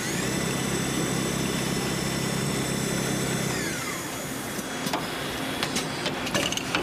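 Automatic coil-winding machine winding copper wire onto an electric motor stator: its motor whine rises as it starts, runs steadily for about three and a half seconds, then winds down. A few sharp mechanical clicks follow.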